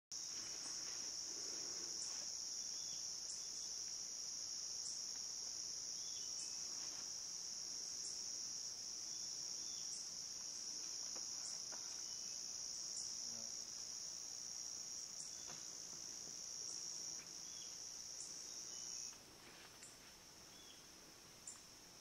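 Tropical forest insects keep up a steady high-pitched drone, with a short higher chirp repeating about every second and a half. The drone drops in level about nineteen seconds in.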